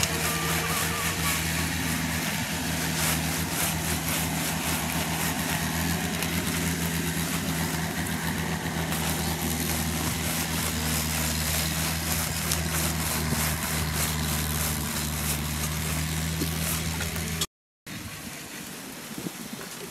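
An engine running steadily at idle with an even low hum. It cuts out abruptly a little before the end, leaving a quieter background with a few small clicks.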